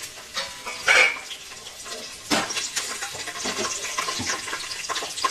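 Garlic, bay leaves and dried red chillies sizzling and crackling in hot oil: the tempering of whole spices. Two louder bursts of sizzle come about a second in and again a little before halfway.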